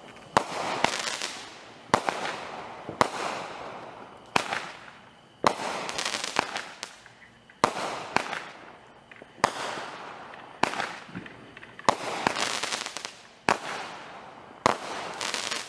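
Fireworks going off: a dozen or so sharp bangs at about one a second, each followed by a fading crackle.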